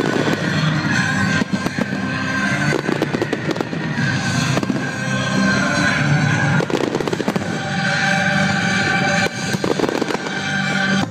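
Fireworks display: bursting shells going off in a rapid, irregular run of bangs and crackles, with music playing along.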